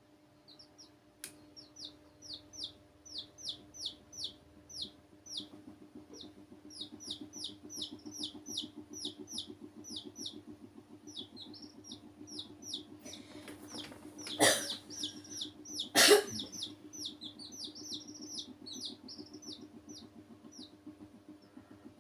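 Domestic chicks peeping: a long run of short high peeps, each falling in pitch, about two to three a second, over a steady low hum. Past the middle come two loud knocks about a second and a half apart.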